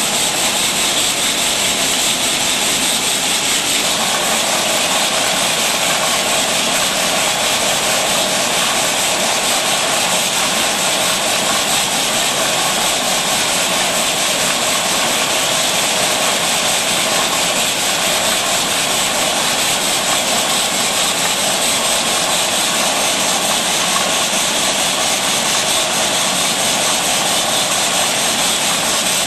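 A steady, loud hissing noise with no rhythm and no knocks or clinks.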